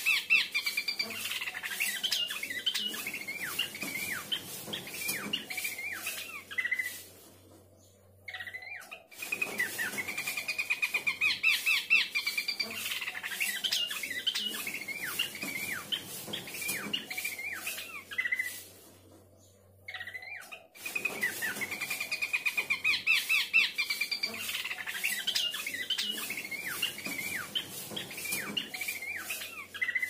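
A pelanduk semak (a Malacocincla babbler) singing in long bouts of rapid notes and falling slurs, each bout opening with a fast trill. The bouts last about eight to ten seconds, with a brief pause between them.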